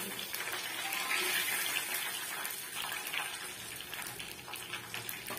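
Chicken pieces deep-frying in hot oil in a pan: a steady sizzle with many small crackling pops, as a perforated metal skimmer lifts the fried pieces out.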